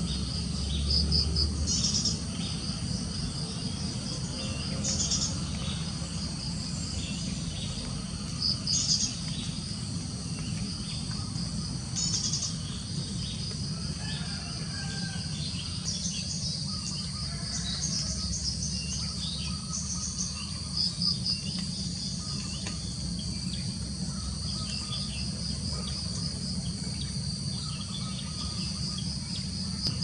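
Tropical insect chorus, a steady high-pitched pulsing trill with louder pulsed bursts every three to four seconds, over a low steady hum. Wild birds give scattered short chirps and calls throughout.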